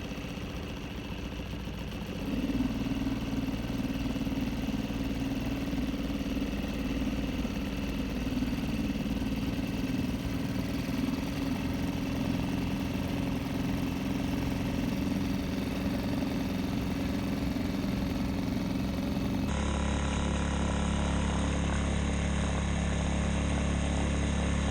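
Small gasoline outboard motor on a canoe running steadily under way, getting louder about two seconds in as it speeds up. Its hum changes abruptly near the end.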